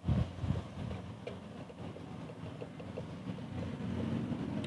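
Low thumps from the dial scale's platter being pressed down hard by hand in the first half second, then a steady low mechanical rumble in the background with a few faint ticks.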